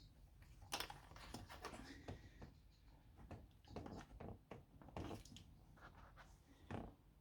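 Faint, irregular small clicks and taps from hands working the headrest clips of a car seat, with a sharper click about a second in and another near the end.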